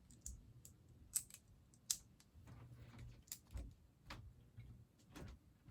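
Plastic Lego pieces clicking against each other as they are handled and searched through: a dozen or so light, irregular clicks.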